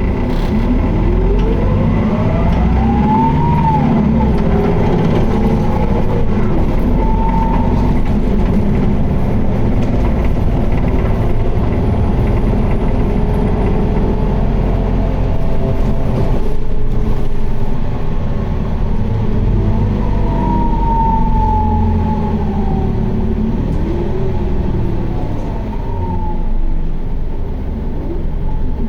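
Isuzu Erga (QDG-LV290N1) city bus running hard in a held 4th gear, heard from inside the cabin: a dense diesel drone and road noise with a whine that rises in pitch over the first few seconds and more gliding whines later on. It carries the odd noise and heavy vibration this particular bus is known for.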